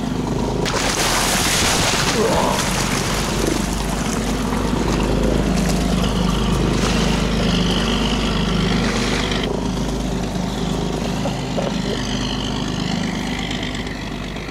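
A boat motor running steadily while underway on the sea, with rushing water and wind noise over it for most of the first nine seconds, then easing off.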